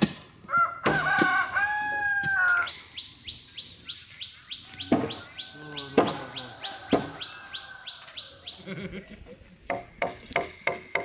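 A rooster crows once near the start. A small bird then chirps in a rapid even series at about four calls a second. Sharp knocks of work on timber fall throughout, and near the end come several quick strikes of a wooden mallet driving a chisel into a log.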